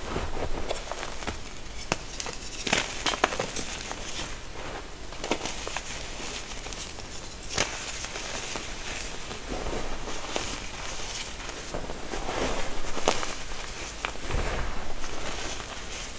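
Hands squeezing and crumbling soft reformed gym chalk and its loose powder, giving irregular crunches and crackles, with a few sharper crunches scattered through.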